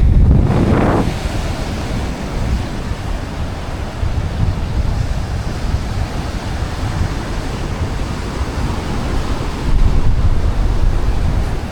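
Wind buffeting the microphone over the steady wash of surf breaking on a sandy beach, with the wind gusting hardest at the start and again near the end.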